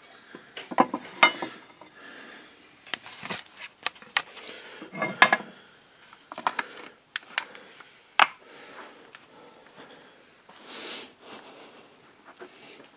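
Scattered metallic clinks and knocks of a steel bar and tools against a four-cylinder IHC tractor engine as it is turned over by hand at the crankshaft pulley.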